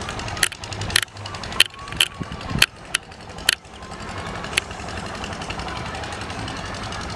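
Sharp knocks, about two a second, stop about three and a half seconds in, with one more a second later. Under them runs a steady low drone.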